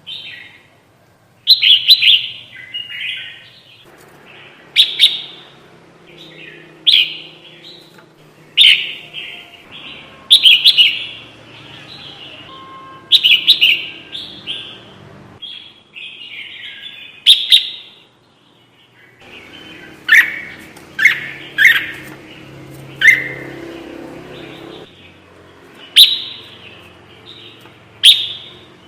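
Kutilang jambul (bulbul) lure call: short, loud, bubbly chirping phrases repeating every one to two seconds, with quieter chatter between them. It is the call used to attract bulbuls when trapping.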